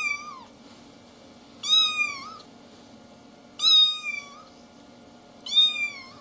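A kitten meowing repeatedly: short high-pitched mews about every two seconds, each bending in pitch as it goes.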